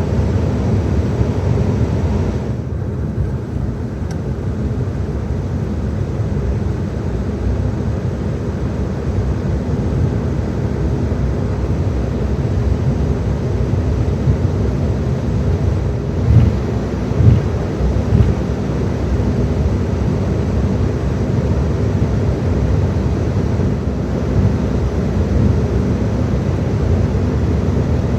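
Cabin noise inside an Embraer 195-E2 taxiing: a steady rumble from its Pratt & Whitney PW1900G geared turbofans at low taxi thrust and its wheels rolling on the taxiway. A few thumps come a little past halfway.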